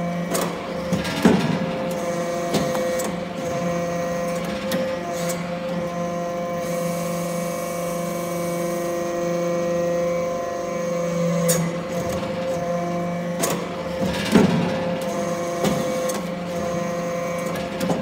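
Aluminum chip hydraulic briquetting press running: a steady hum from its hydraulic power unit, broken by sharp metal clanks several times as the press works and briquettes move along the output chute.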